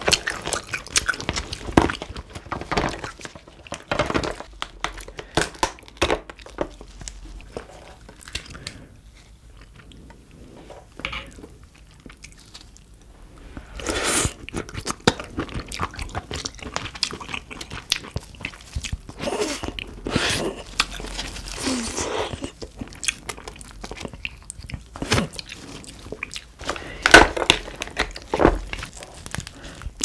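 Close-miked chewing and biting of steamed crab, with irregular sharp crunches and cracks. There is a quieter stretch about a third of the way in, and the sharpest crack comes near the end.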